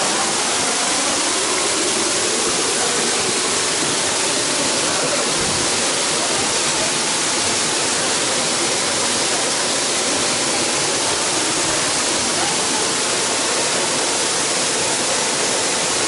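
Loud, steady rushing of a waterfall pouring down a moss-covered rock face, an even wash of water noise that does not change.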